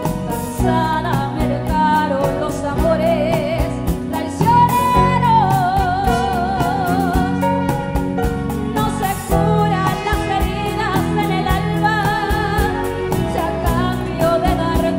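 A woman singing live into a microphone, holding notes with vibrato, backed by a live band of acoustic guitar, keyboard and drum kit keeping a steady beat.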